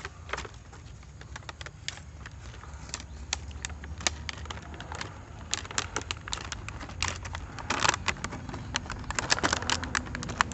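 Small hard plastic toy parts being handled, with irregular clicks, taps and clatter that come in denser clusters in the second half.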